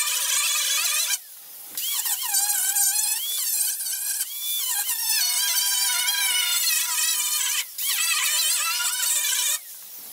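High-speed handheld cut-off tool whining as it cuts into the car's sheet-metal quarter panel, its pitch wavering up and down as the wheel bites and frees. It stops for half a second just over a second in, again briefly past seven seconds, and once more near the end.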